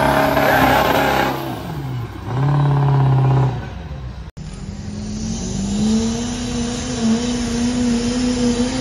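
Diesel pickup truck engines under full load pulling a weight sled. The first, a Ford Super Duty, climbs in revs and then falls off and dies away about three and a half seconds in. After a sudden break, another diesel truck's engine is held steady at high revs through its pull.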